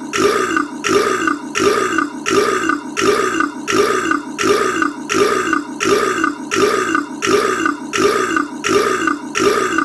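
A man's short, deep burp, the same burp looped over and over, repeating evenly about three times every two seconds.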